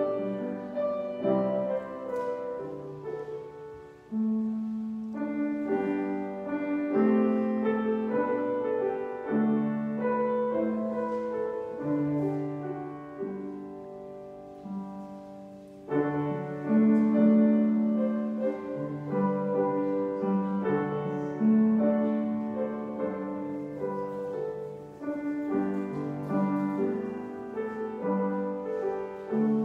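Slow piano music: sustained chords under a melody, moving in phrases, with a louder phrase coming in about halfway through.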